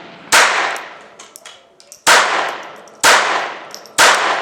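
Westco-marked J-22 .22 LR semi-automatic pistol firing four shots at uneven spacing, each with a short fading echo. The pistol is cycling and feeding normally.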